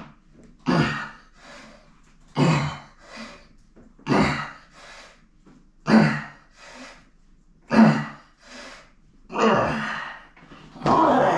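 A man breathing hard under the strain of heavy dumbbell shoulder presses: a forceful breath out about every second and a half to two seconds, each followed by a quicker, weaker breath in. The last two breaths, near the end, are longer and more strained.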